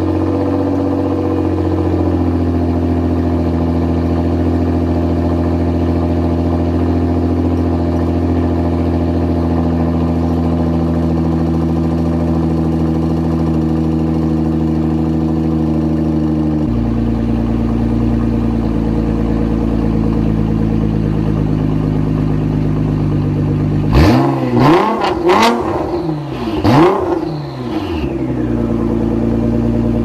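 Nissan GT-R R35 Nismo's twin-turbo V6 idling through an Armytrix aftermarket exhaust after a cold start. About 17 seconds in the idle drops to a lower note as the fast cold idle settles. Near the end it is blipped up sharply about four times in quick succession, then falls back to idle.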